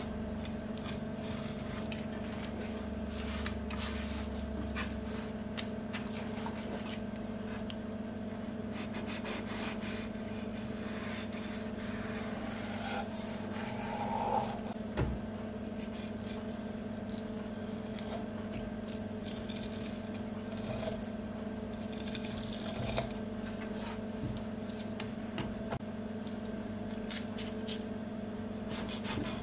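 Kitchen knife cutting along the backbone of a European sea bass on a plastic cutting board: soft irregular scraping with many small clicks of the blade against bone and board, a little louder about halfway through. A steady low hum runs underneath.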